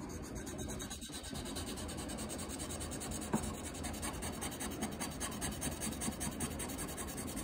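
Small wet whetstone rubbed back and forth on a ceramic plate, polishing a hardened sabi urushi (lacquer putty) kintsugi repair line smooth. Quick, even rubbing strokes that grow more regular about two seconds in.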